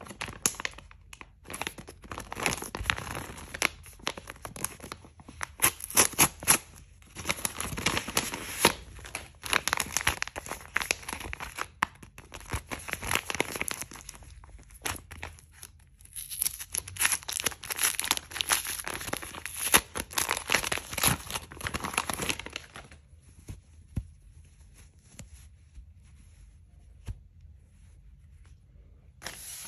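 Sheet of white paper folded into an envelope, crinkling and crackling as it is handled and torn open by hand. The crinkling stops about three-quarters of the way through, leaving only faint, sparse handling sounds.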